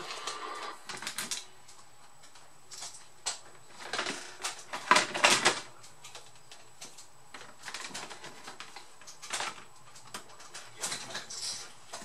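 Irregular clicks, taps and scrapes of hands and a screwdriver working on an ASUS R556L laptop's display panel and plastic case, with the loudest cluster of knocks about five seconds in.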